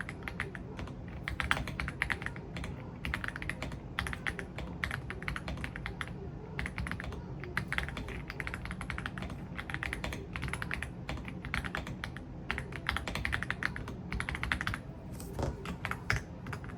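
Typing on an AULA F75 mechanical keyboard fitted with Reaper linear switches. Rapid runs of keystrokes come in bursts of a second or two, with short pauses between.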